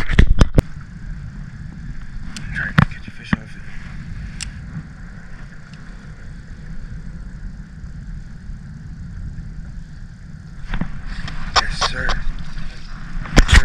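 Rod and tackle handling on a small aluminium boat: several sharp knocks and clicks in the first few seconds, then a steady low rumble with a faint whir as a spinning reel is cast and wound in. More knocks come near the end.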